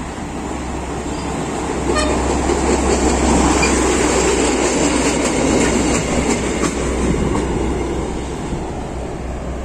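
SuperVia track maintenance rail vehicle pulling flat wagons past, wheels running on the rails with clicks over the joints. It grows loudest a few seconds in, then eases off as it goes by. A brief tone sounds about two seconds in.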